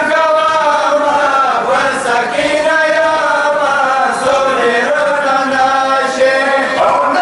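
A group of men chanting a Muharram mourning chant into a microphone, one melodic line drawn out in long held notes.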